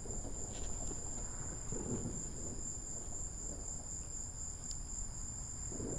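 Crickets chirping in a steady, high-pitched chorus, with a low rumble underneath.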